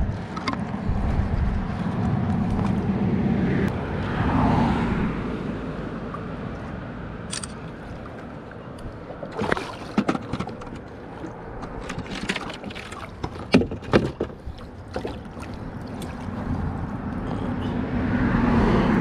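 Water sloshing and gurgling against a small fishing boat's hull, over a steady low rumble, with a run of sharp knocks about halfway through.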